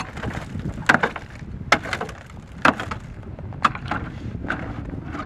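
Pickaxe chopping ice in a frozen livestock water trough: about six sharp cracking strikes, roughly one a second.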